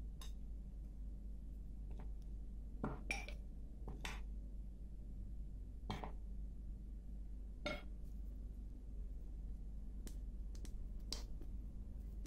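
A metal spoon and fork clinking lightly against glass mixing bowls, about eight separate clinks at irregular intervals, as flour is scooped and dough is mixed. A steady low hum runs underneath.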